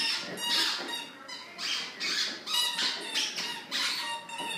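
Dog chewing a squeaky toy, setting off the squeaker over and over in quick repeated squeaks, about two to three a second.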